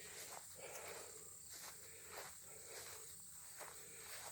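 Faint footsteps through grass, about two a second, over a steady high-pitched buzz of insects.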